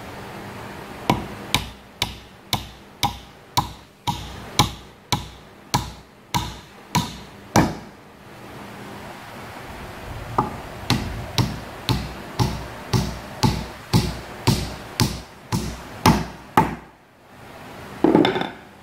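Hammer tapping on wood, about two strikes a second, in two runs of a dozen or more strikes with a pause of about two seconds between them, then one louder thump near the end.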